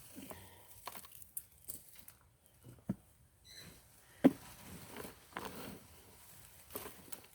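Scattered soft rustles and knocks of soil and gardening tools being handled while digging sweet potatoes out of a container, with one sharper knock a little over four seconds in.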